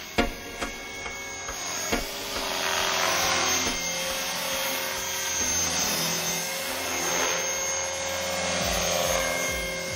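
Thunder Tiger Mini Titan electric RC helicopter flying: its motor and rotor whine, growing louder a couple of seconds in as it passes close, with a few sharp clicks in the first two seconds.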